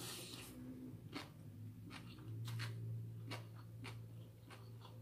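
A person slurping and chewing thin rice noodles: a short slurp at the start, then scattered wet mouth clicks and smacks, over a low steady hum.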